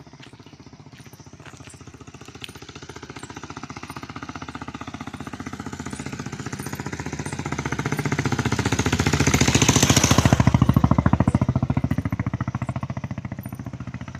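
A passing vehicle with a fast, even throb. It grows louder for about ten seconds, peaks, then fades away.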